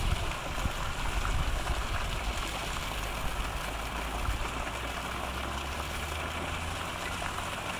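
Water splashing steadily from a fountain jet falling into a lake, with a low rumble underneath.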